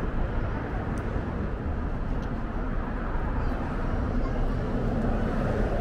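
Busy city street ambience: steady traffic rumble mixed with the voices of passers-by.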